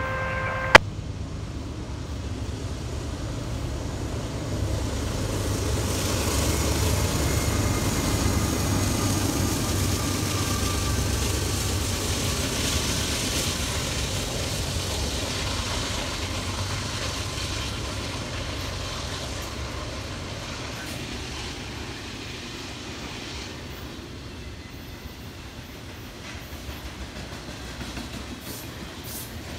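Norfolk Southern intermodal freight train passing at about 36 mph: the diesel locomotives build up and pass over the first ten seconds or so, then the rumble and clatter of trailers on flatcars and empty intermodal cars goes by, slowly fading. Under a second in, a steady pitched tone stops suddenly with a sharp click.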